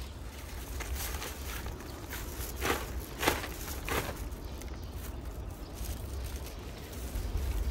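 Wind buffeting the microphone as a low steady rumble, with three short rustles about three seconds in as a folded fabric ground sheet is shaken open.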